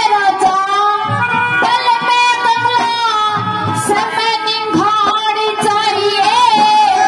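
Haryanvi ragni folk music played live: a woman singing with a wavering, ornamented voice over a held harmonium drone and a barrel-shaped dholak drum beating below.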